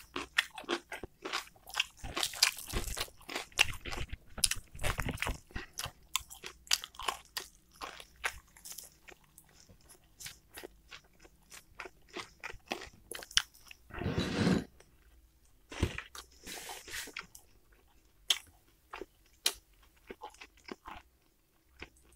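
A person chewing crunchy food close to the microphone, starting on a bite of cucumber: wet crunches come thick and fast for the first several seconds, then thin out into slower, sparser chewing.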